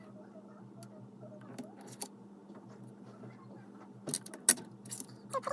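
Small plastic Lego pieces clicking and rattling in a short cluster about four seconds in, over a faint steady hum.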